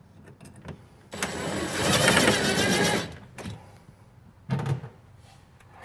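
Cordless drill/driver running for about two seconds, driving a stainless Phillips-head screw into the shifter boot plate, its whine wavering in pitch. A second short burst follows near the end.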